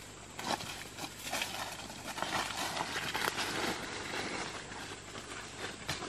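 Dry leaf litter and twigs crackling and rustling, with irregular sharp snaps, most of them in the first few seconds.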